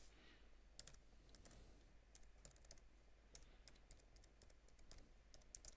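Faint computer keyboard typing: irregular, quick key clicks, several per second in places.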